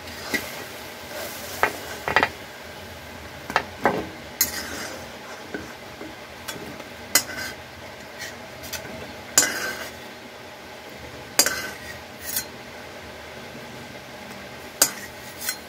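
Metal spatula scraping and knocking against a metal kadhai at irregular intervals as boiled elephant foot yam and drumstick pieces are scooped out, over the steady bubbling of the boiling water.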